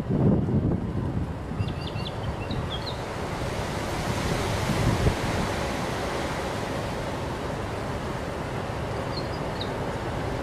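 Steady wind noise on the microphone over the low running of heavy prime-mover trucks slowly hauling an oversize load. A few short high bird chirps come about two seconds in and again near the end.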